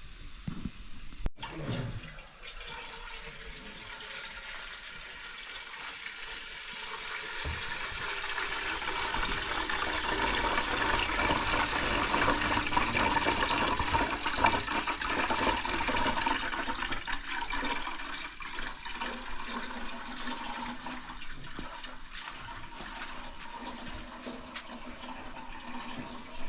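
A sharp click about a second in, then water running steadily from a tap, growing louder towards the middle and easing off near the end.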